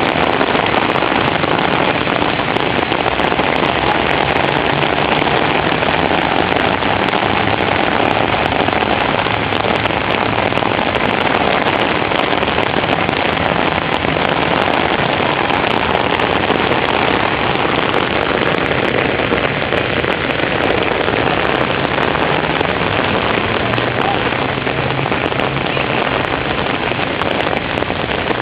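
Heavy rain falling steadily, a dense even hiss with countless small drop hits on hard surfaces.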